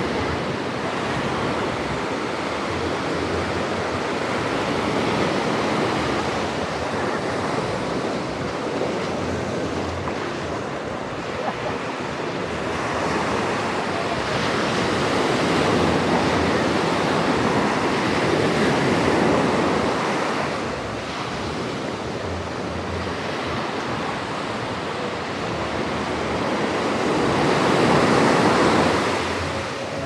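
Small ocean waves breaking and washing up the sand at the water's edge, a continuous rush of surf that swells louder about halfway through and again near the end.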